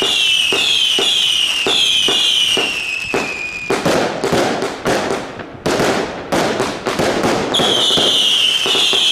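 Fireworks going off overhead: a quick run of whistling shots, two or three a second, each with a short falling whistle and a pop. About four seconds in they give way to a spell of irregular loud bangs and crackling bursts, and near the end a long falling whistle starts up again.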